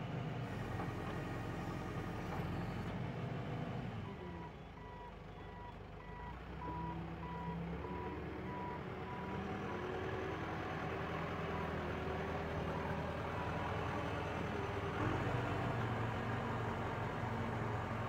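JCB 3CX backhoe loader's diesel engine running as the machine manoeuvres, with its reversing alarm beeping in an even series from about four seconds in until about two-thirds of the way through. The engine picks up a little near the end.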